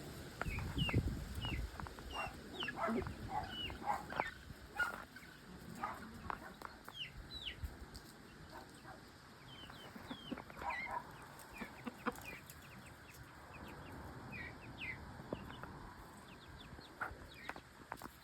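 Free-ranging chickens clucking, with a run of short high peeps, several a second at first and then sparser, typical of chicks.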